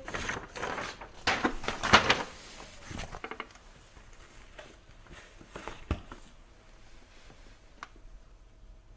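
Handling noises: a quick run of rustling and knocks in the first two seconds as a large printed paper sheet is put down, then a few scattered light taps and clicks.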